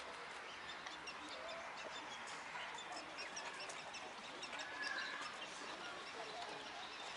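Outdoor ambience of faint birds chirping and calling here and there over a steady hiss.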